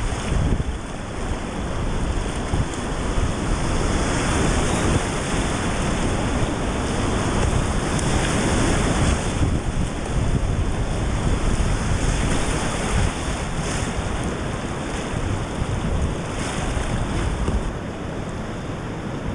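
Whitewater rushing and churning around a kayak running a river rapid, heard close on the kayak camera's microphone with a low rumble. The rush eases a little near the end as the kayak reaches calmer water.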